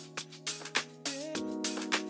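Background music with a steady beat: a held chord over regular drum strokes, the chord changing about two-thirds of the way in.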